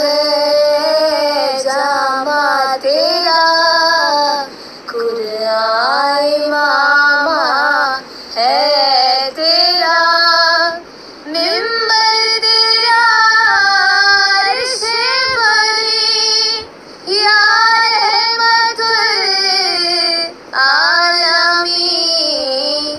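A high voice singing a slow melodic song in phrases of a few seconds with short breaks between them, laid over the video as background music.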